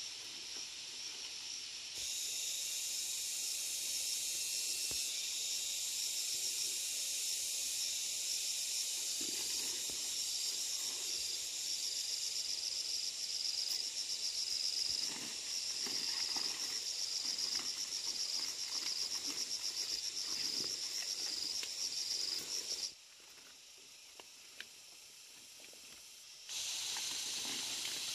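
A chorus of insects droning high and steady in dense vegetation, with faint leaf rustles now and then. The drone drops away for a few seconds near the end, then returns.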